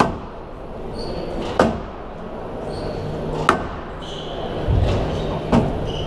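Squash rally: the ball cracks sharply off rackets and walls four times, about two seconds apart, with short high squeaks of shoes on the court floor between the hits.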